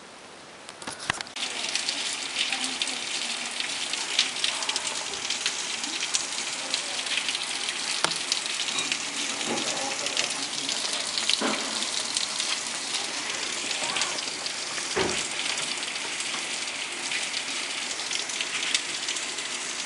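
Heavy thunderstorm rain pouring down, a dense steady hiss with sharp drops hitting close by, starting abruptly about a second in.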